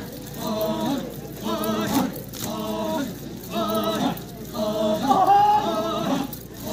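Chakhesang Naga men's dance chant: a large group of male voices chanting in unison in short repeated phrases, about one a second, with brief gaps between them.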